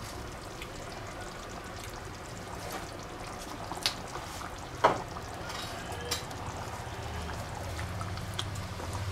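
Thick tomato-based sauce of minced meat, peppers and zucchini simmering in a frying pan, a steady soft bubbling. A few light knocks and clicks come through it, the sharpest about five seconds in. Near the end a wooden spatula stirs and scrapes through the sauce in the pan.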